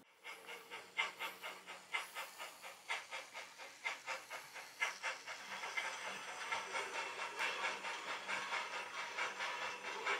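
A model train of log-loaded flat wagons running along layout track, giving a faint, regular clicking over a soft hiss.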